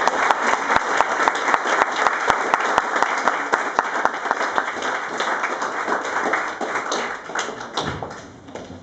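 Audience applauding with dense hand-clapping, thinning out and dying away near the end.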